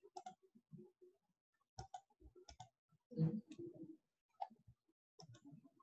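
Faint, irregular clicks and small taps, a dozen or so, scattered through a pause in speech, slightly louder a little over three seconds in.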